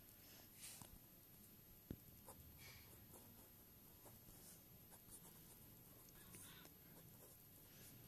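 A pen writing on a paper planner page: faint, short scratching strokes as words are handwritten, with one light tap about two seconds in.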